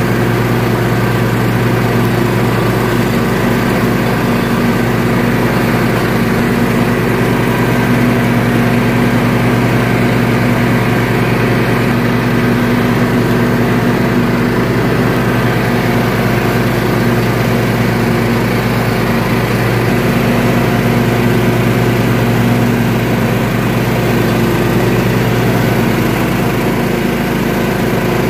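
Toro lawn tractor's 20-horsepower single-cylinder engine running steadily under load while mowing thick grass.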